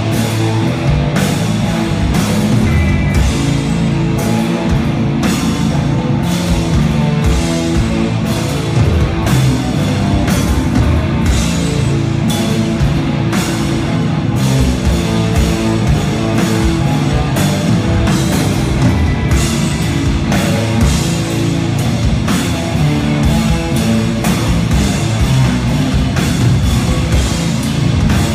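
A doom metal band playing live through a theatre PA. Heavily distorted electric guitars and bass ring out over a steady drum beat with recurring cymbal hits.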